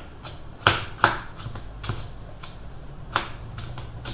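Kitchen knife chopping garlic on a cutting board: a run of irregular sharp knocks, a few each second, the two loudest about a second in.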